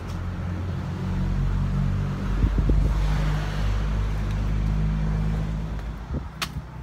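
A motor vehicle passing on the road below: a low rumble that swells to a peak about halfway through and then fades, with a sharp click near the end.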